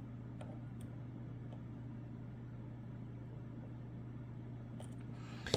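A lock pick working the pin tumblers of a brass Lockwood Twin padlock: a few faint, scattered clicks over a steady low hum, with one louder click near the end.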